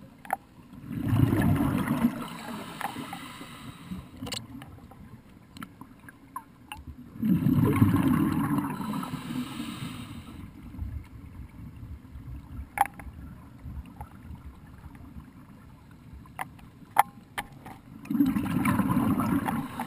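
Scuba diver's exhaled air bubbling out past the camera underwater in three bursts of a couple of seconds each, with scattered sharp clicks in between.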